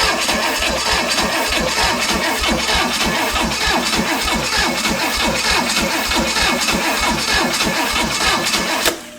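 Chevy 283 small-block engine running on only one cylinder head, four cylinders firing in a fast, even pulse, then shut off suddenly near the end.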